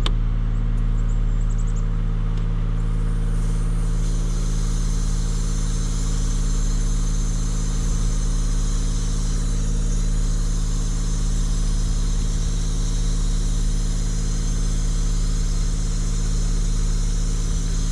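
An engine running steadily at constant speed, a low even hum.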